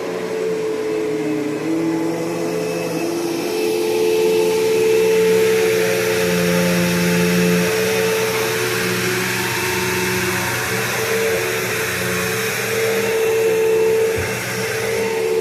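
Bissell PowerForce Bagless Turbo 6596 upright vacuum with its 12-amp motor running steadily: a motor whine over a rushing airflow hiss, swelling slightly in loudness now and then.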